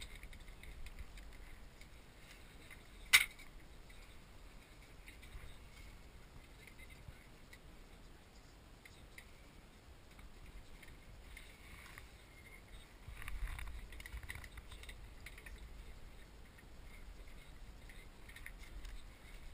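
Faint handling noise of a small wooden automaton and its card kite being fitted by hand: scattered small ticks and rustles, one sharp click about three seconds in, and a duller low knock around the middle.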